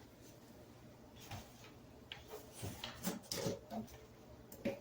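Faint scattered clicks and rustles of hands handling a plastic-tubed LED light strand, with one sharper click near the end.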